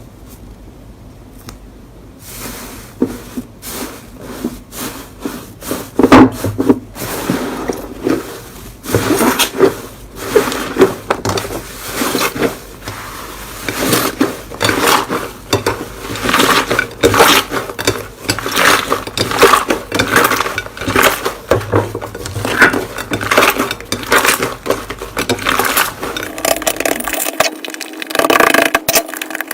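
Slime worked by hand, pressed and stretched, giving a dense run of sharp clicks and pops that starts a couple of seconds in.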